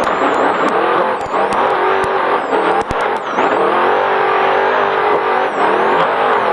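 Trophy Truck race engine running hard, its pitch rising and falling as the driver gets on and off the throttle. A few sharp knocks come between about one and three seconds in.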